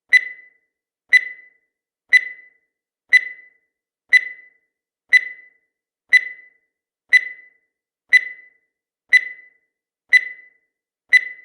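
Countdown timer sound effect: a short, high beep once every second, each dying away quickly, in a steady even rhythm.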